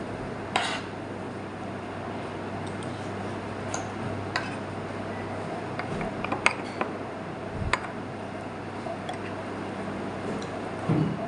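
Metal fork and spoon clinking and scraping against a plate every second or two as food is scooped up, over a steady low hum.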